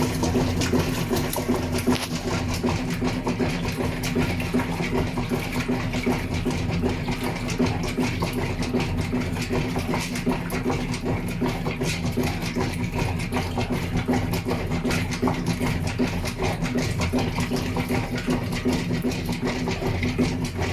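GE washing machine running: a steady motor hum under a dense, rapid rattle.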